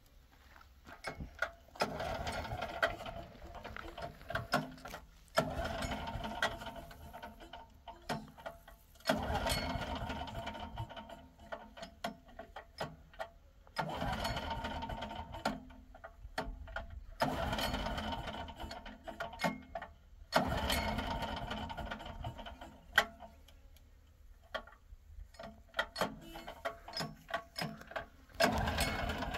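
A small machine running in stretches of a few seconds, stopping briefly between them, with a busy clicking rattle as it goes.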